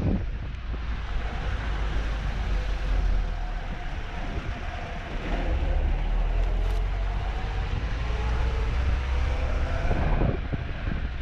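Lada Niva driving along a rough, muddy dirt road: a steady low rumble of engine and road noise.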